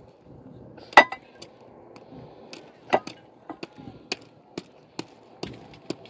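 Irregular clinks and knocks of hard objects being handled, about a dozen in all, with the loudest about a second in.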